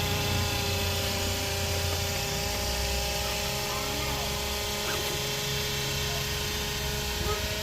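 Electric motors of a radio-controlled construction model running with a steady whine, over a low rumble that swells and fades several times.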